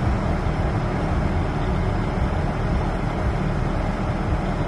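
Steady rumble and hiss inside a car's cabin, with the car running and its air conditioning blowing.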